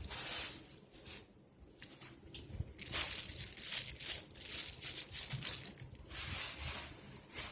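Crafting materials handled by hand, making irregular crinkling and rustling in short bursts separated by brief pauses.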